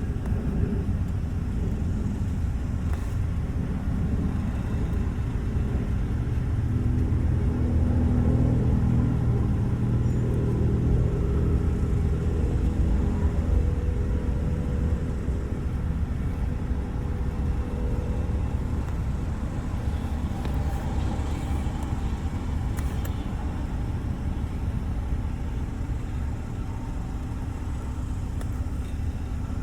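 Motor vehicle running, a steady low rumble with an engine note that swells for several seconds partway through.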